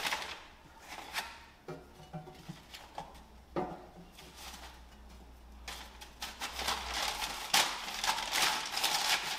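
Paper bag rustling and crinkling while potatoes and an onion are set down in a stainless steel tray with a few knocks. The rustling is densest over the last three seconds.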